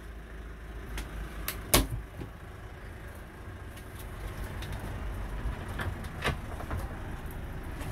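Clicks and knocks from the motorhome's wooden cupboard doors being handled, over a low steady rumble. The loudest is a sharp click about two seconds in, with a few lighter knocks later.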